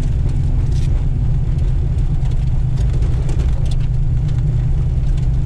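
Steady low rumble of a car, with a few faint clicks and rattles and no revving.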